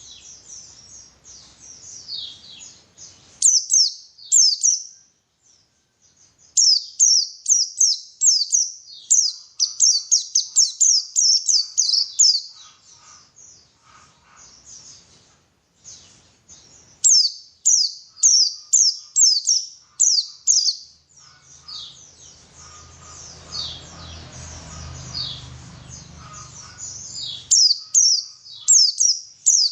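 White-eye (pleci) song: fast runs of high, sharp chirps in bursts of a few seconds, separated by short pauses. A faint low hum sits underneath for a few seconds past the middle.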